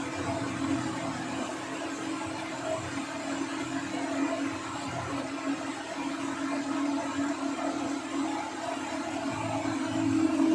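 Steady whir of an electric motor, such as a fan or compressor, running continuously with a constant hum underneath; it gets a little louder near the end.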